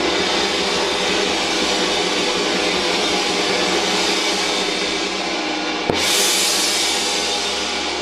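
A large gong ringing with a long, shimmering sustain. It is struck again with a soft mallet about six seconds in, and the sound flares brighter, then slowly decays.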